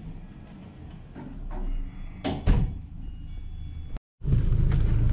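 Two sharp knocks over a low hum, then, after a cut, the steady low rumble of a 2004 Volkswagen Golf's engine running, heard from inside the cabin.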